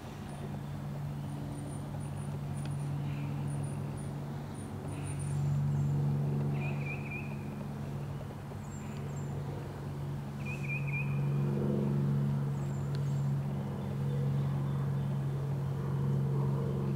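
Steady low motor hum, louder from about five seconds in, with small birds chirping in short high trills over it.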